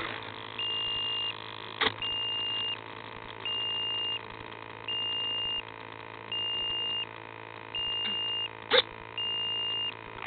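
Electronic beeper on a downed FPV model plane sounding a high, steady beep about every one and a half seconds, each beep lasting under a second, typical of an alarm signalling a crashed or lost model. A faint steady hum runs beneath, with two short clicks.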